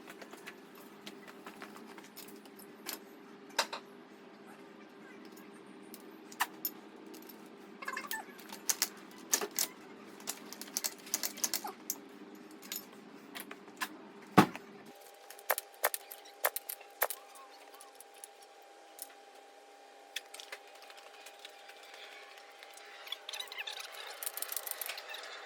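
Scattered light metallic clinks and taps of hand tools being handled, with one sharper knock about halfway through. A steady hum runs underneath and cuts off just after that knock, leaving a faint steady higher tone.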